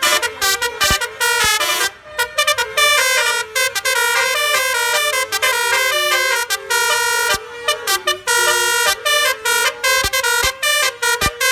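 Basuri multi-tone air horn on an Isuzu Traga truck, sequenced by a DAV air horn tone module, playing a fast melody. Short notes step from pitch to pitch with several horn tones sounding together.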